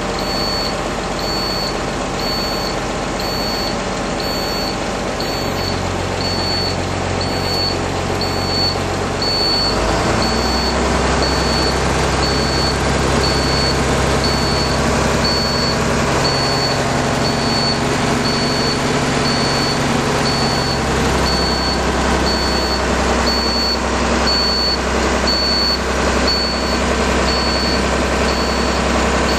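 Cummins 6BT turbo diesel idling just after a cold start from winter storage, its engine note shifting about ten seconds in and again about two-thirds of the way through. Over it, a warning buzzer beeps steadily a little faster than once a second while the air-brake pressure is still low.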